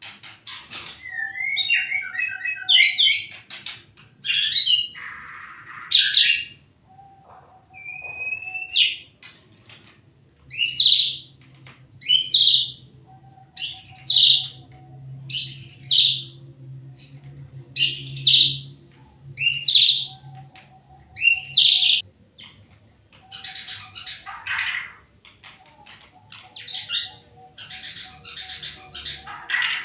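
White-rumped shama (murai batu) singing. The first few seconds hold varied, quick phrases; through the middle come loud, repeated short notes about every second and a half; then more varied song.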